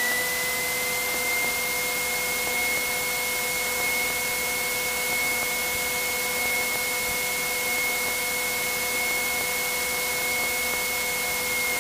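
Cessna 182P's Continental IO-550 engine and propeller running steadily at taxi power before takeoff, heard from inside the cabin. A steady high whine rides over the drone, levelling off early and starting to drop at the very end.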